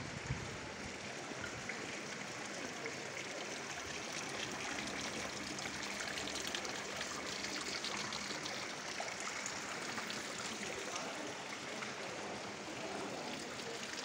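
Steady rush and splash of running water from a stone courtyard fountain.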